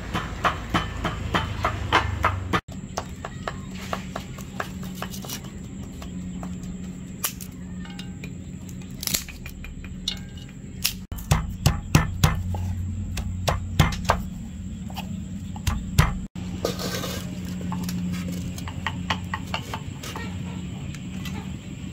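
Cooking clatter at a wood-fired stove: a spatula working in a wok, then sticks of firewood being pushed into the fire and a metal pot being handled, in many short, sharp clicks and knocks over a steady low hum.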